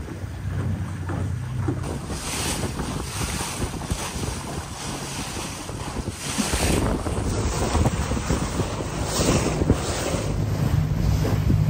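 Boat running at speed over choppy water: wind buffeting the microphone and water rushing and splashing along the hull, over the low steady drone of the boat's motor. The wind swells in gusts, and the motor's drone comes up again near the end.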